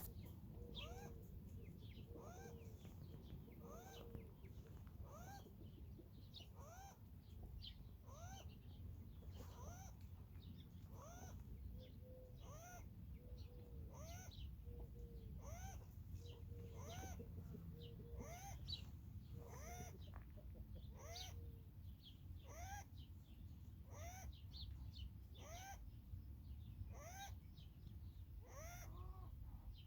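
Wild rabbit making faint, wheezing squeaks about once a second, each rising then falling in pitch, over a steady low hum. The uploader wonders whether it is a sign of respiratory disease.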